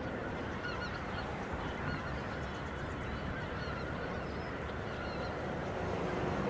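A distant flock of geese calling, many short honks overlapping, over a steady background noise.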